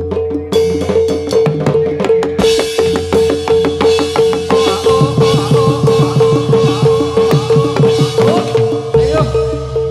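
Amplified jathilan accompaniment music: drums play over a steady pitched note repeating about twice a second. Busier high percussion joins about two seconds in, and a wavering melody line comes in around the middle.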